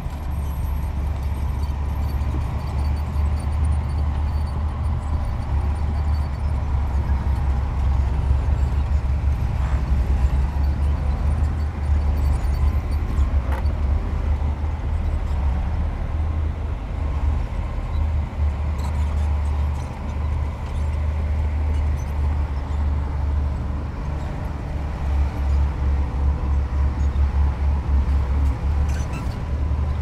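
Heavy diesel machinery running: a steady, loud low rumble with a faint whine above it and a few light knocks.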